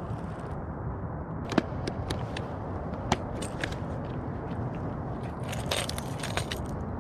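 A plastic tackle box being opened and lures handled: scattered sharp plastic clicks and light rattles, with a small cluster of them near the end, over a steady low background noise.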